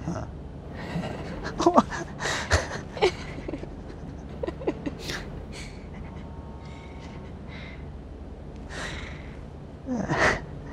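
A man laughing through tears in short, breathy gasps and snorts, coming in scattered bursts with the loudest one near the end.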